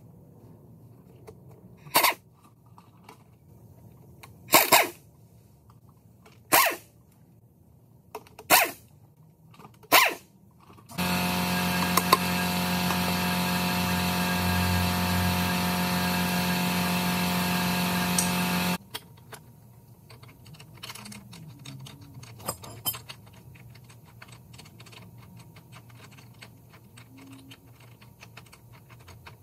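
Pneumatic air impact wrench run in six short bursts about two seconds apart, spinning off hub cap bolts on a truck wheel hub. Then a steady, loud machine sound with a fixed pitch runs for about eight seconds and cuts off, followed by faint clicks and rattles of parts being handled.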